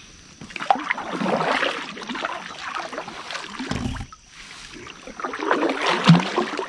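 Water splashing and sloshing around a kayak, with knocks against the hull, in two spells of a few seconds each.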